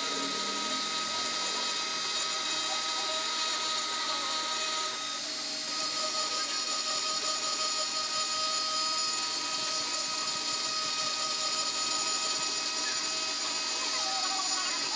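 Small pen-style electric rotary engraver running at speed with a steady high whine, its bit grinding into the side of a glass bottle to engrave a hole.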